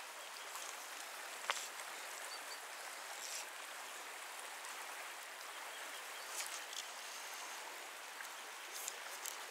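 Shallow river running over stones: a steady rushing of water, with a few faint clicks.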